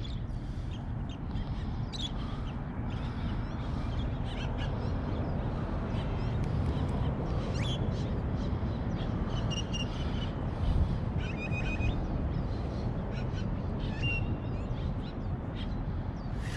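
Birds calling in short, scattered chirps and squawks over a steady low rumble.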